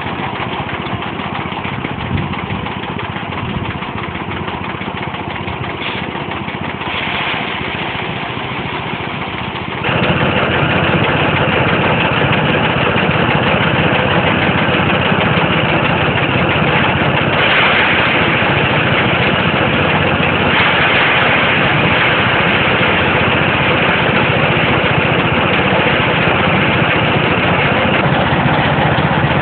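Small engine running steadily, driving a rice thresher's spinning threshing drum. About ten seconds in, the sound gets louder and fuller.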